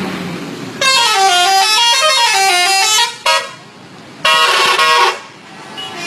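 Indonesian bus telolet horn, a multi-tone air horn, playing a warbling melody that rises and falls for about two seconds, then a short toot, then a steady chord of several notes for about a second.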